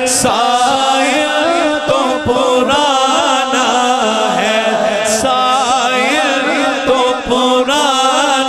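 A man singing an Urdu naat into a microphone, drawing out long, wavering melismatic notes with no clear words, over a steady low held tone.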